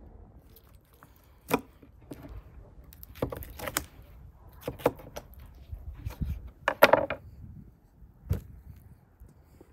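Knife cutting and scraping at a beef leg on a wooden cutting board, with irregular knocks as the heavy leg and the knife meet the wooden boards; the loudest knock comes about seven seconds in.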